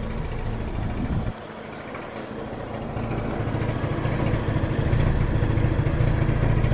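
A steady engine hum at idle. It drops suddenly about a second in, then comes back and grows louder.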